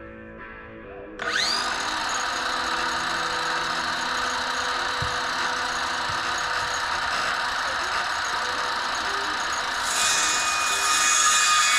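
Power drill driving 4-inch deck screws into wooden header boards and a 4x6 post: the motor spins up with a rising whine about a second in and then runs steadily under load, getting louder near the end.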